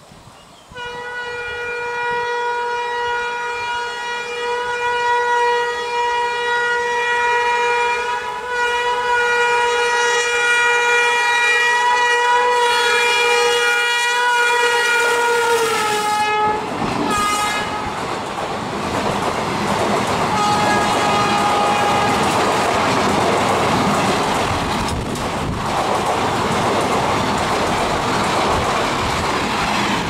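WAP-5 electric locomotive's horn sounding continuously for about fifteen seconds as the train approaches, its pitch dropping slightly as the locomotive passes. Then the ICF passenger coaches rush past with the clickety-clack of wheels over rail joints, and a shorter horn sounds again about twenty seconds in.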